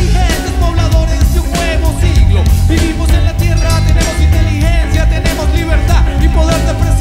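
Rock band playing live on drums, bass guitar and electric guitars, with a long note held through most of it.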